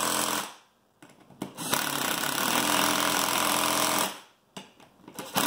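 Power driver running beadlock ring bolts down in bursts: one run that stops about half a second in, a longer run of about two and a half seconds, and a short burst near the end.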